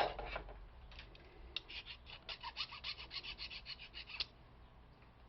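Metal being scraped or filed by hand on a door-handle part, a quick run of short strokes, about six a second, starting about a second and a half in and lasting close to three seconds. The scraping cuts through the finish to test whether the metal underneath is brass.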